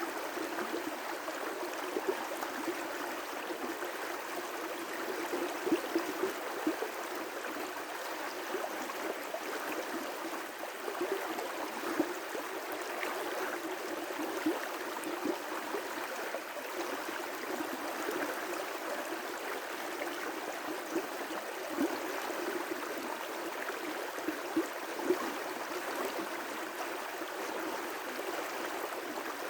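River rapids rushing steadily, with many small irregular splashes rising briefly above the continuous roar of the water.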